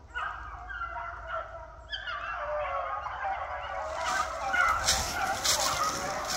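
A pack of beagles baying together while running a rabbit, with more voices joining about two seconds in. Footsteps crunch through dry leaves in the second half.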